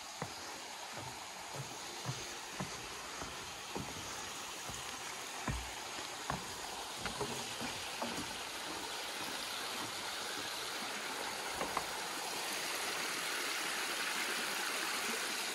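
Small rocky creek running steadily, growing louder toward the end. In the first half, footsteps thud on the planks of a wooden footbridge about once a second.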